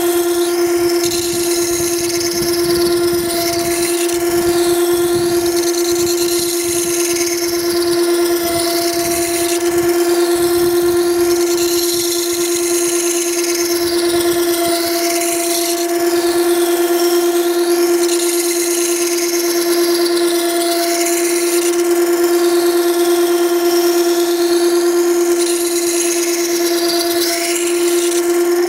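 Makita 9820 electric water stone sharpener running with a steady motor hum. A plane iron held in a jig is ground on its 120-grit coarse wheel, rough grinding the bevel back toward 25 degrees. A wet, hissing grind swells and fades every couple of seconds as the blade is worked across the stone.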